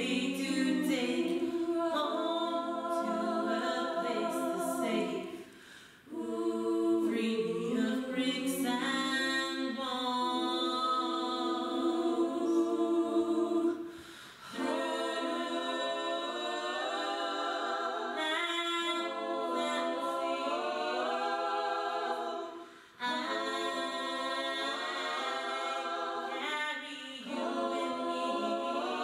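Several voices singing unaccompanied in harmony, in long held phrases broken by brief pauses about six, fourteen and twenty-three seconds in.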